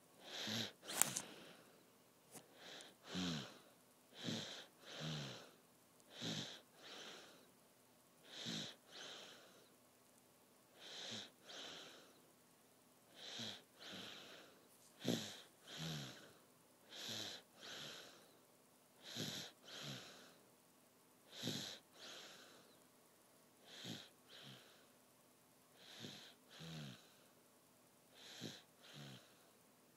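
A sleeper snoring softly: short snores in pairs, roughly one pair every two seconds, each with a low pitch that falls away. There is a brief click about a second in.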